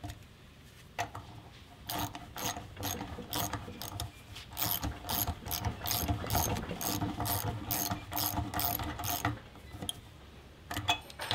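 Socket ratchet wrench clicking as it is swung to run a nylon insert lock nut onto a stainless steel hex cap screw held in a vise. A steady run of clicks, about three a second, starts about a second in and stops about nine seconds in.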